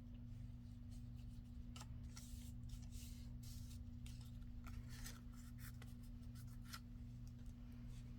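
Faint scratchy rubbing and rustling of paper being handled and pressed down during gluing, a string of short strokes starting about two seconds in.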